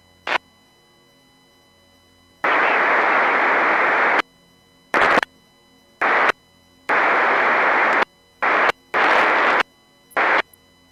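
Marine VHF radio receiver putting out bursts of static as transmissions open the squelch, with no readable voice: a short click, then about seven bursts of hiss that each start and cut off abruptly, the longest nearly two seconds.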